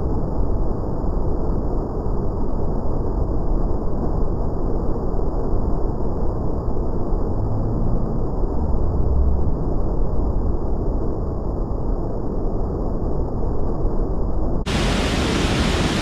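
Waterfall's rushing water: a steady low rumble with the high hiss missing, until the full, bright rush returns about 15 seconds in.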